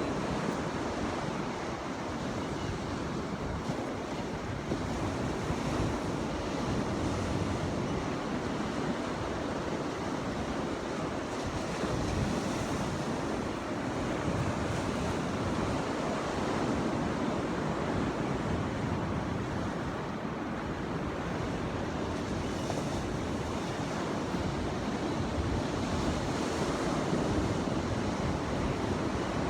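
Ocean waves breaking and washing in as continuous surf, swelling and easing every few seconds, with some wind noise on the microphone.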